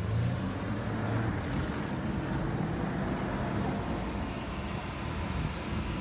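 Safari vehicle's engine running with a steady low rumble as the vehicle moves slowly.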